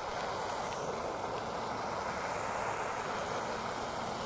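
Butane torch lighter's jet flame hissing steadily.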